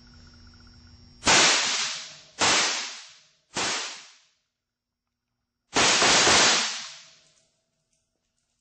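Walther P99 replica blank-firing pistol firing 9mm PA blanks: three sharp shots about a second apart, then after a pause of about two seconds a fourth, longer blast.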